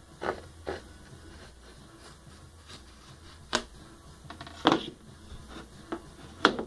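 Wooden marking gauge of Claro walnut and maple being handled against a wooden board: about six separate knocks with brief scrapes of wood on wood, the sharpest near the end, over a faint low hum.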